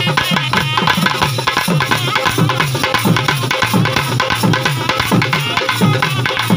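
Karakattam folk drumming: hand-struck drums beaten in a fast, steady rhythm, the deep strokes dropping in pitch, with a higher wavering melody line in places.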